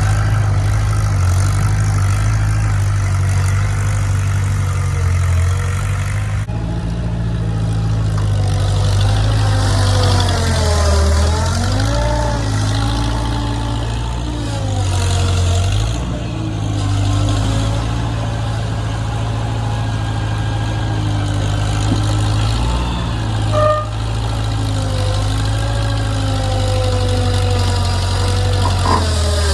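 An engine running steadily, with a higher whine that rises and falls in pitch as the load changes. The sound shifts about six seconds in, and there are a couple of short knocks near the end.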